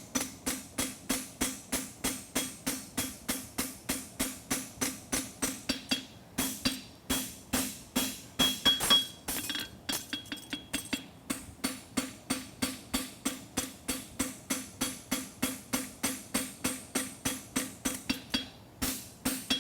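Farrier's hammer striking a hot steel horseshoe on the anvil in a steady rhythm, a little under three ringing blows a second, with brief pauses about six seconds in and again around ten seconds: forging the branch wider.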